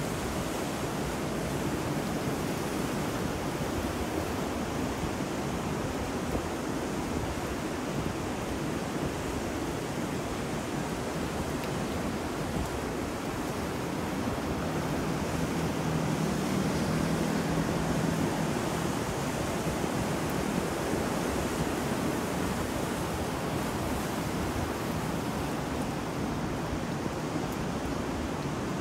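Ocean surf with wind and rain, blended into a steady wash of noise that swells slightly around the middle.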